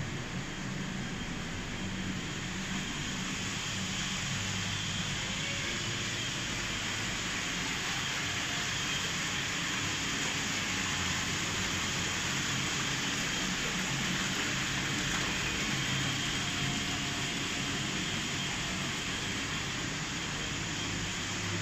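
Whirlpool bathtub jets running: a steady rushing of churning water and air with a low motor hum.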